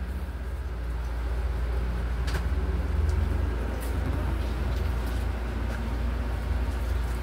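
An engine running steadily with a low drone, with a few faint clicks over it.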